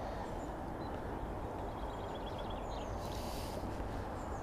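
Outdoor pond-side ambience: a steady low rumble with faint, scattered bird chirps and a short trill, and a brief soft hiss about three seconds in.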